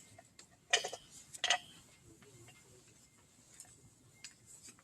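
Two short faint clicks, about a second in and half a second apart, followed by a few fainter ticks.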